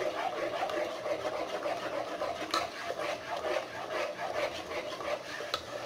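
Long plastic spoon stirring melted soap base in a pot, rubbing and scraping against the bottom and sides, with a light knock on the pot about two and a half seconds in and again near the end.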